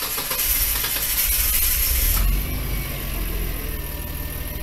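Nissan Skyline GT-R R32's twin-turbo straight-six (RB26DETT) just started: it runs with a loud high hiss that cuts off abruptly about two seconds in, then settles to a steady idle.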